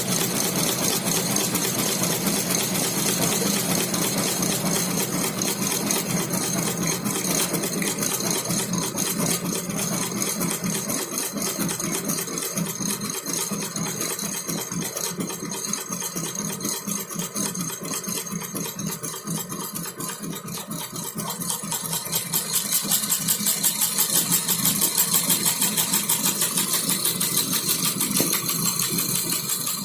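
Twelve-needle high-speed embroidery machine stitching, a fast, even mechanical clatter that runs steadily and gets louder for a stretch in the last third.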